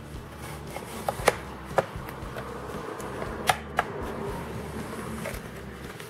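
Plastic retaining clips of an Asus V551L laptop's bottom case snapping loose as a plastic pry tool is worked along the seam, with light scraping in between. Five sharp clicks: three in the first two seconds, the second of them the loudest, and two more close together past the middle.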